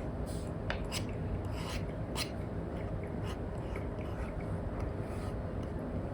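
Apple Pencil Pro tip scratching across an iPad screen fitted with a paper-like film, in short irregular sketching strokes over a steady low background hum.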